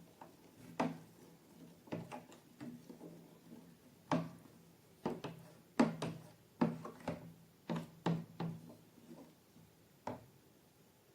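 Slime being squeezed and worked by hand, giving about a dozen irregular sharp sticky clicks and pops, most of them in the middle of the stretch.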